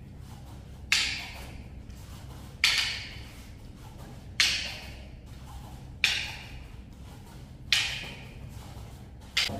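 Arnis sticks clacking together as strikes meet blocks: six sharp wooden knocks in an even rhythm, about one every second and a half to two seconds, each ringing off briefly in the room.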